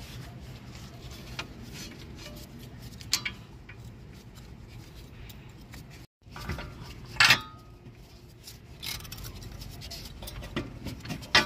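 Scattered metallic clinks and knocks of steel parts and tools as a front CV axle's splined outer end is worked out of the steering knuckle hub. The loudest is a sharp clack about seven seconds in, with another near the end.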